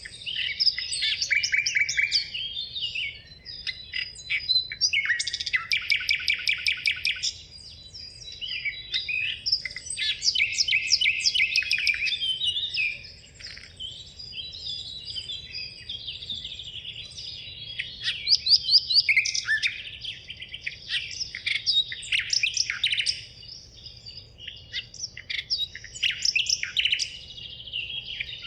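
Several songbirds singing at once: overlapping chirps, fast trills and rapid runs of repeated notes in phrases of a few seconds each.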